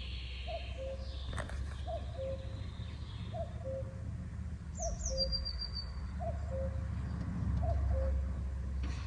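Common cuckoo calling its two-note 'cu-ckoo' over and over, a higher note dropping to a lower one about every second and a half, over a steady low rumble. A small bird gives a few brief high chirps in the middle.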